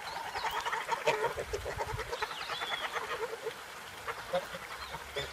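White domestic ducks quacking, a rapid run of short calls that thins out after about three and a half seconds.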